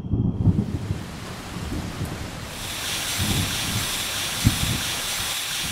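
Deep, uneven rumbling, joined about halfway through by a steady rushing hiss that grows to fill the high end, with a single sharp knock near the end.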